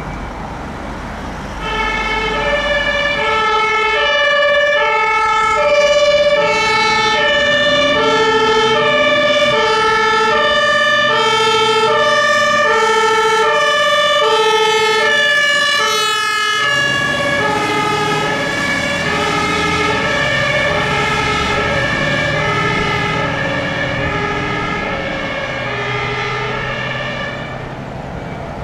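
Two-tone siren of a Scania aerial ladder fire truck responding on a call, switching steadily between a low and a high note about every two-thirds of a second; it comes in about a second and a half in. Around the middle the notes drop slightly in pitch and the truck's engine comes up underneath as it passes, and the siren fades a little near the end as it moves away.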